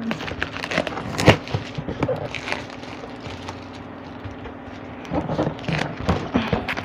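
Cardboard printer box and its packing being handled and opened: scattered rustles and taps, busiest at the start and again near the end, over a steady low hum.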